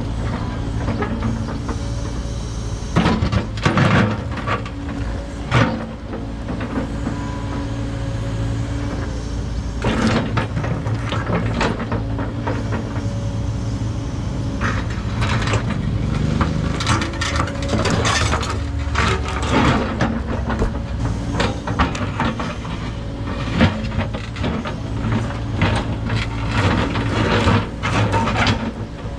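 Kubota KX080 excavator's diesel engine running steadily under load, with repeated scraping, crunching and knocking as the bucket breaks up and drags concrete foundation.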